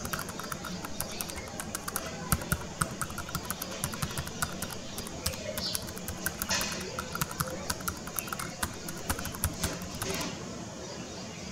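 Computer keyboard typing sound effect: rapid, irregular key clicks that stop about ten seconds in. It plays over soft background music.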